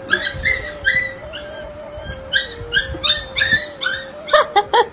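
Rapid high-pitched dog whimpers and squeaks, about three a second, over a steady hum that shifts slightly in pitch, with a quick cluster of louder yips near the end.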